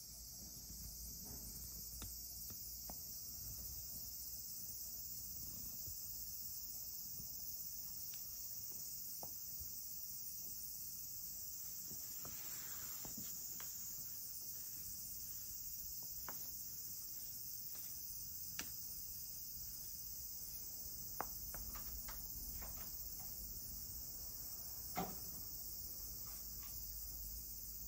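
A steady, high-pitched chorus of insects, with a few faint clicks and one short soft knock near the end.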